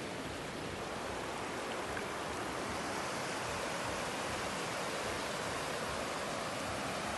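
Muddy floodwater of a creek in spate rushing past, a steady even rush of water.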